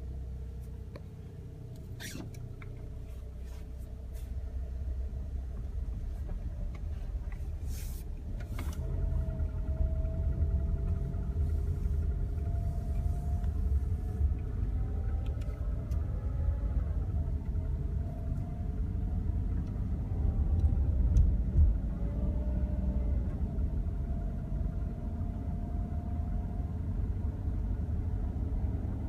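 2010 Toyota Camry's 2.5-litre four-cylinder engine running cold with a steady low rumble. The owner takes the noise for valve or lifter noise. A few short knocks come near the start and about a third of the way in.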